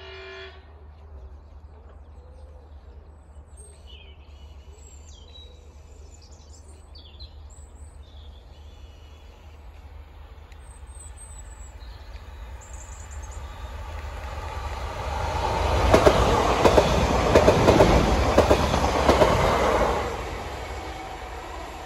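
Class 755 Stadler FLIRT bi-mode multiple unit approaching and passing close at speed, its wheels clattering over the rail joints. It grows steadily louder, is loudest for a few seconds about two-thirds of the way through, then fades.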